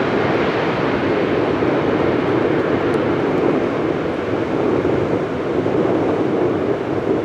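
Jet engines of a four-engine widebody airliner climbing out after takeoff: a steady, dense rumbling roar.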